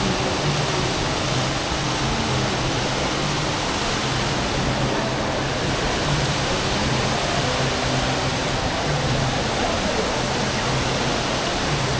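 Indoor waterfall feature with water falling from the ceiling like rain, making a steady, even rushing splash.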